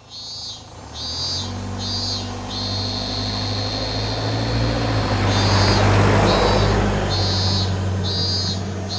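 Japanese level-crossing alarm ringing its repeating ding about twice a second. A train's rumble and hum build under it, loudest a little past the middle, then ease off.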